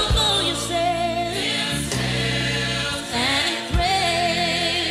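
Gospel choir singing with instrumental accompaniment and a steady low bass line.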